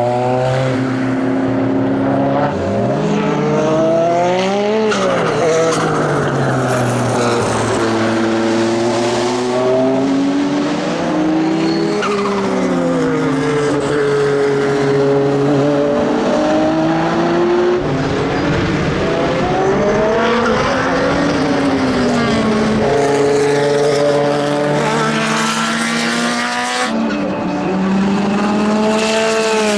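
Porsche 962C's twin-turbocharged flat-six racing engine at speed on track, its pitch climbing and dropping again and again as it accelerates, shifts gear and slows for corners.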